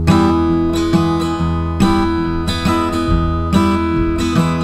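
Background music: the intro of a song, an acoustic guitar strummed in a steady rhythm.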